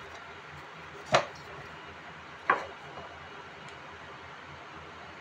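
Two sharp knocks about a second and a half apart, raw potatoes being set down on a wooden cutting board, over a faint steady hiss.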